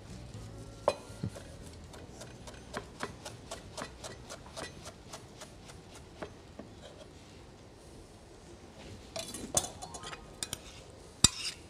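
Kitchen knife chopping basil leaves on a cutting board: a steady run of quick sharp taps, about three a second, for several seconds. Near the end come a few clinks against a ceramic baking dish as the chopped herbs go onto the potatoes.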